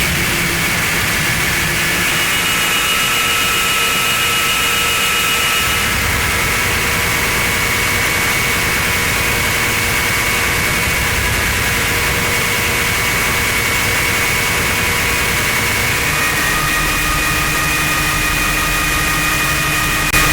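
Steady, even rushing noise with a few faint steady tones in it, like a jet engine running.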